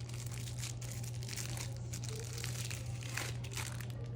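Candy wrapper packaging crinkling and rustling in a quick, irregular run as it is handled and unwrapped, over a steady low electrical hum.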